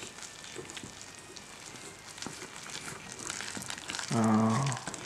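Thick buckwheat galette batter being whisked in a stainless steel bowl: soft wet stirring with faint irregular clicks of the wire whisk. Near the end a person gives a short hum.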